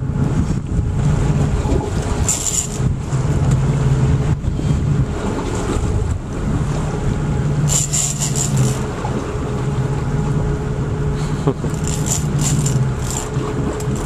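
Boat engine running at idle, a steady low hum that fades in and out. Short bursts of high, rattling clicks come about two seconds in, around eight seconds in, and again near the end.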